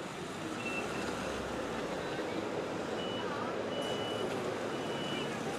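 Steady outdoor street noise with a high electronic beep sounding several times at uneven intervals, some short and some held for about half a second.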